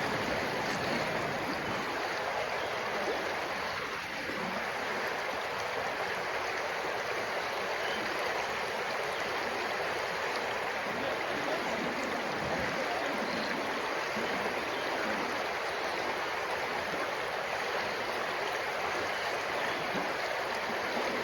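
A stream running steadily: an even, unbroken rush of flowing water, the natural 'white noise' beside the tent.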